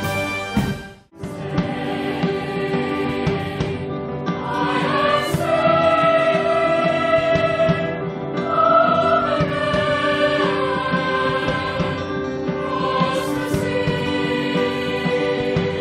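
A cathedral choir of children's and men's voices singing a sacred piece in long, held chords. About a second in, a military band's music breaks off before the singing carries on.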